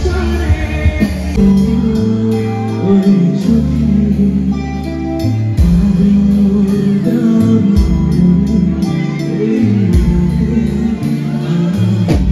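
Live pop-rock song played over stage loudspeakers: a band with held bass notes, guitar and regular cymbal strokes, and a man singing into a microphone.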